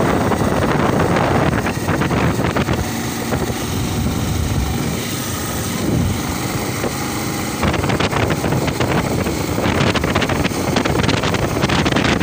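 Wind buffeting the microphone of a moving motorcycle, mixed with engine and road noise. It eases for a few seconds in the middle and comes back louder about eight seconds in.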